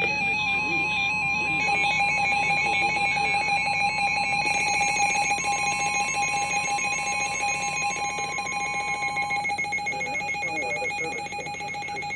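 Emergency Alert System alert tones between two broadcast warnings: steady, loud electronic tones with a fast warble, one plain tone dropping out about nine seconds in, the rest cutting off abruptly at the end.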